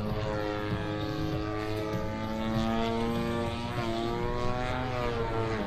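Desert Aircraft DA-120 twin-cylinder two-stroke petrol engine of a giant-scale RC Edge 540 aerobatic plane running in flight with its propeller, the engine note wavering in pitch and dipping briefly near the end as the plane manoeuvres.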